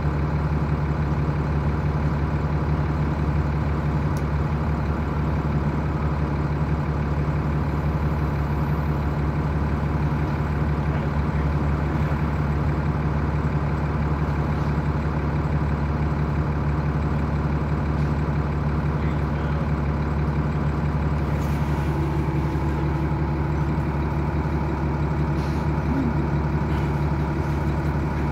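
Bus diesel engine idling: a steady low drone that holds one pitch.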